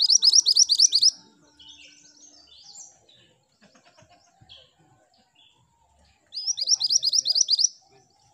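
Minivet singing: two fast trills of repeated rising high notes, each about a second long, one at the start and one about six seconds in, with softer scattered chirps between.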